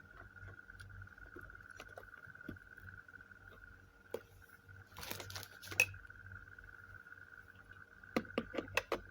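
Hard plastic parts of a live-streaming stand kit being handled and fitted together: scattered clicks and rattles, a short burst of rustling and knocking about five seconds in, and a quick run of about six sharp clicks near the end.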